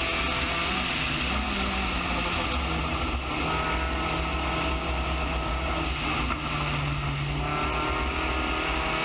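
Spec Racer Ford GEN3 race car's four-cylinder engine under load, heard from the cockpit. The engine note dips and picks up again in the first second or so, holds steady and climbs slowly under power, then falls away near the end, over wind and road noise.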